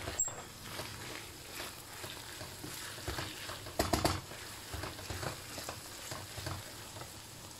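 Ground beef sizzling in a frying pan while it is stirred with a wooden spoon: a steady frying sizzle under irregular scraping strokes, the loudest about four seconds in.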